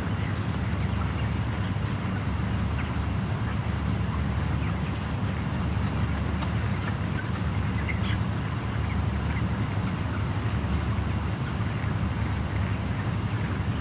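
A flock of broiler chickens calling, scattered short chirps over a steady low hum, the hum typical of a closed-house poultry shed's ventilation fans.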